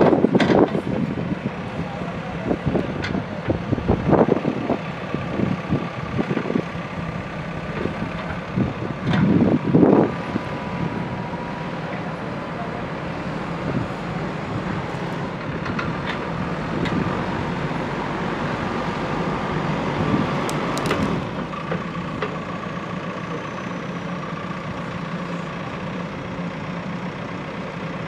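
JCB backhoe loader's diesel engine running steadily under work, with a faint steady whine. There are a few short clanks and thumps near the start, about four seconds in and about ten seconds in.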